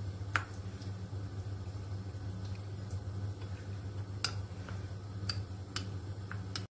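Breaded potato balls deep-frying in hot oil in a pot: scattered crackles and pops over a steady low hum. The sound cuts off abruptly near the end.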